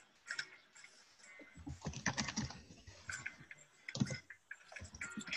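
Computer keyboard typing: quick, irregular key clicks, heaviest from about one and a half to under three seconds in, with another burst at about four seconds.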